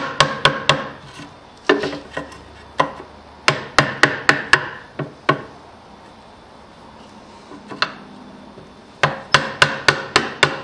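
Wood chisel being driven into a wooden beam with quick, sharp blows, chopping out a notch. The blows come in runs of about four a second, with a pause of a couple of seconds midway.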